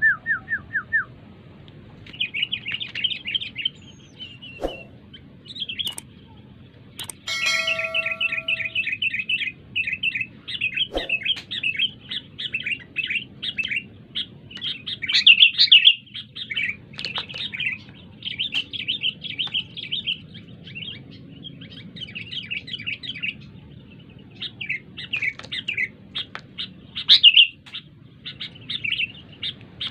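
Sooty-headed bulbul (kutilang) chattering: runs of quick, harsh chirps repeated one after another with only short gaps, the noisy 'ribut' call played from a kutilang video through a phone's speaker.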